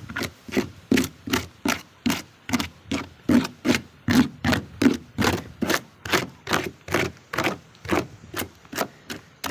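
Hammer striking the soft, rotten plywood of a trimaran hull in a steady run, about three blows a second, each a dull thud.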